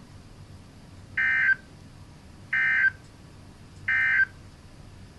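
Three short bursts of EAS/SAME digital data tones, evenly spaced about a second and a half apart: the end-of-message signal that closes a NOAA Weather Radio alert broadcast.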